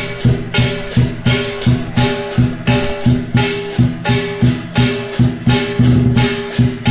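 Lion dance percussion: the lion drum with clashing cymbals and gong, playing a steady, loud beat of about two and a half strikes a second.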